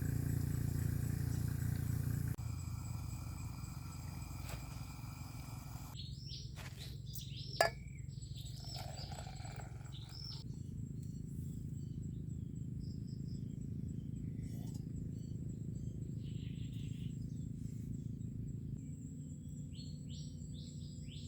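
Wild birds calling: a run of short whistled calls that slide down in pitch about six to ten seconds in, and a few more near the end. Under them is a steady low outdoor rumble, with one sharp click near the middle.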